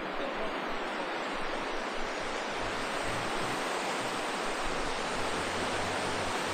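The Ribnica river rushing over rocks in shallow rapids: a steady, even rush of water.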